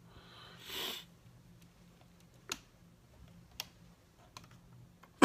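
A few sharp, isolated clicks from a wall light switch being handled, after a soft rustle about a second in.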